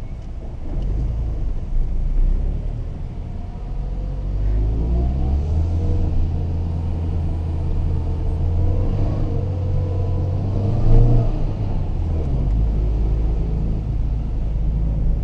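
Inside the cabin of a 2015 Renault Sandero 1.6 being driven: low engine rumble and road noise. The engine note rises as the car accelerates about four to five seconds in, holds steady, then eases off about twelve seconds in.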